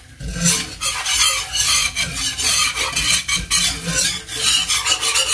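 Wire whisk stirring a butter-and-flour roux in a cast-iron skillet, the metal wires scraping the pan bottom in a fast, rhythmic rasp.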